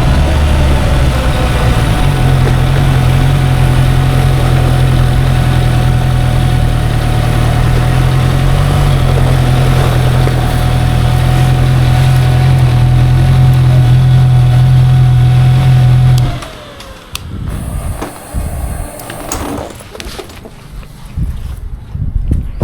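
Motorcycle engine running loudly and steadily with a thin steady whine above it, then cutting out abruptly about 16 seconds in. Quieter scattered knocks and clicks follow.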